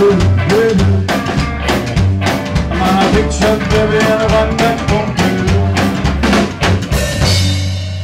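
Live rockabilly band playing an instrumental passage: upright bass, electric guitar lead and a drum kit keeping a fast, even beat. The beat stops about seven seconds in and the last chord rings out.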